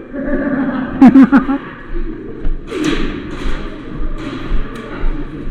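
A short voice call about a second in, then a run of soft thuds and rustles from an airsoft player moving in gear, roughly two a second.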